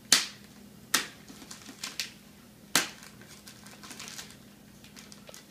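Hands working plastic wrapping and tape off a hard acrylic case: three loud sharp clicks, near the start, about a second in and just before three seconds, with a few fainter clicks between them.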